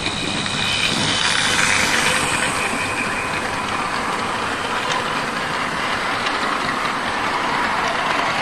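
Model railway train running past at close range: a high motor whine from the locomotive that fades over the first few seconds, then the coaches' wheels rolling steadily over the track.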